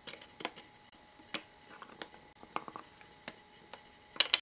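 Light, sharp plastic clicks and taps from handling a miniature plastic toaster-oven replica and its tiny food pieces, scattered and irregular, with the loudest quick pair of clicks near the end.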